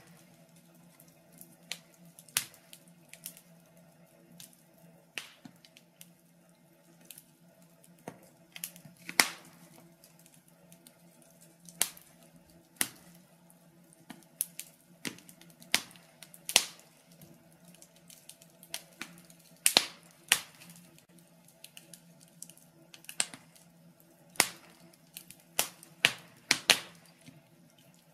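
Wood fire crackling in a stove: irregular sharp pops and snaps, a few of them loud, over a steady low hum.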